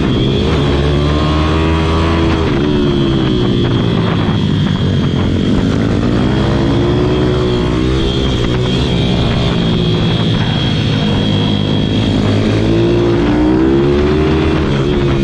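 Pit bike engine at racing pace, its revs rising and falling again and again as it is throttled out of corners and backed off into the next.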